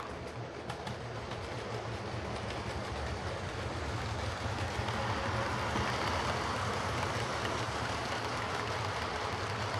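Lima Class 37 OO gauge model diesel locomotive running on the track: its replacement CD motor whirs steadily and its wheels rumble on the rails. The sound grows gradually louder through the first half and then holds steady.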